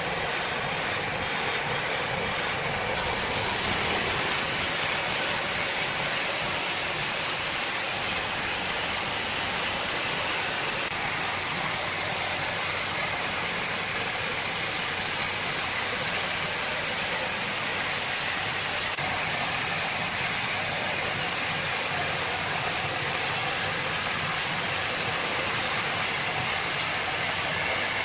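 Horizontal band sawmill running and cutting lengthwise through a large timber: a steady whirring hiss of the band blade in the wood over the hum of the drive, a little louder from about three seconds in.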